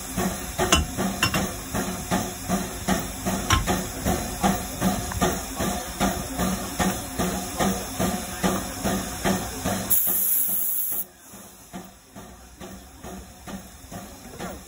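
Narrow-gauge locomotive standing with its machinery pulsing about twice a second, with metal clanks from the coupling in the first few seconds. About ten seconds in comes a loud second-long hiss of air from the train's brake hoses as they are connected, after which the pulsing carries on more quietly.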